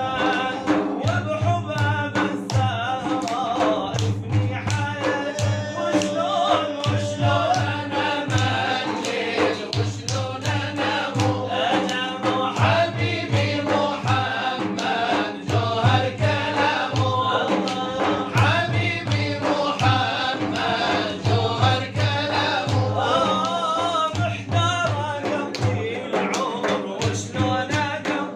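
Arabic devotional chant (inshad): male voices singing a melody over held tones, with hand drums beating a steady rhythm of low thumps and sharp strikes.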